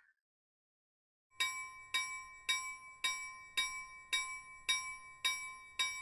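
Railroad crossing warning bell ringing in a steady 'kan-kan' rhythm, about two strikes a second, starting a little over a second in: the signal that a train is approaching and the barrier is coming down.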